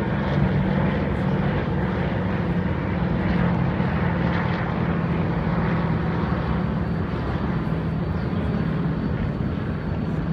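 Douglas DC-3's twin radial piston engines and propellers droning steadily as the plane flies over, the engine note easing slightly lower in pitch as it goes.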